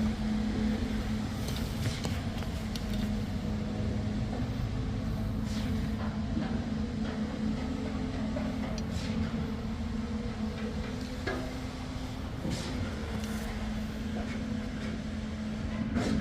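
Heavy machinery running with a steady, low hum and rumble, with a few scattered knocks and clicks.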